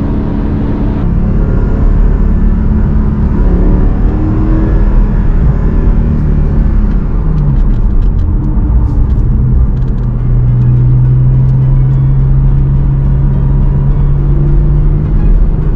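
Porsche Cayman GTS 4.0's naturally aspirated 4-litre flat-six running while driving. Its pitch drops about halfway through, then it holds a steady note and begins to climb again near the end.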